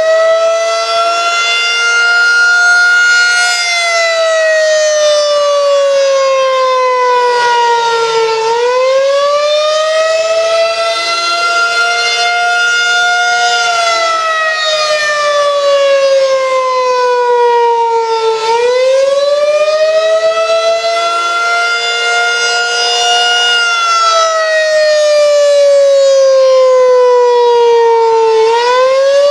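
Federal Signal 2001-SRN electronic outdoor warning siren sounding a wail during a test. The pitch rises over about two seconds, holds, then slides slowly down, in a cycle that repeats about every ten seconds.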